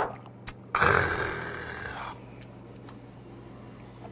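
A shot glass knocks down onto a wooden table, then about a second in a man lets out a loud, rasping breath after downing a shot of soju, lasting about a second and fading away.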